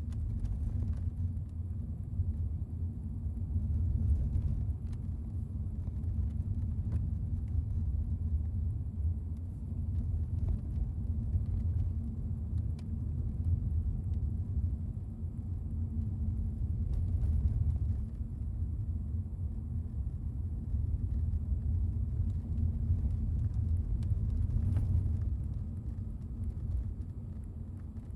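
Car on the move: a steady low rumble of engine and road noise, swelling and easing slightly without a break.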